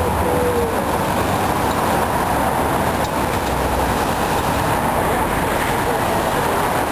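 Steady road noise of a vehicle moving in busy city traffic. A short rising squeak sounds about half a second in.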